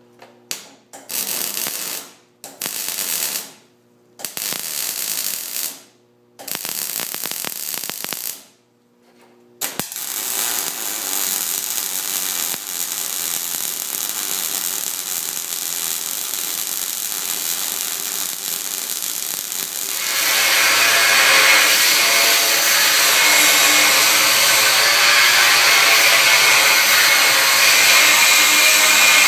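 A power tool run in several short bursts of a second or two, then running continuously, stepping up louder about twenty seconds in.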